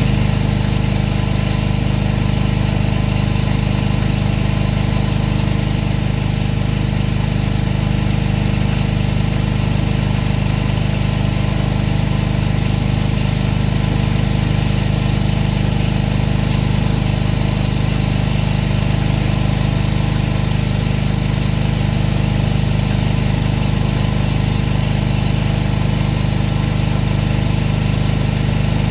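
Gasoline engine of a pressure washer running steadily at constant speed, with a hiss above it.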